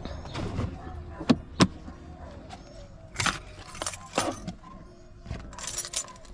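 A handful of sharp clicks and knocks at uneven intervals: handling noise from objects being moved about.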